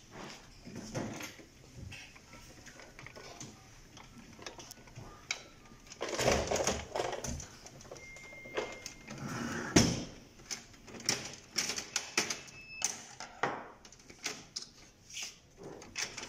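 Clicks, knocks and rattles of an HP LaserJet 1320 printer's plastic casing and metal frame being handled and worked on with a screwdriver, with a sharp knock about ten seconds in.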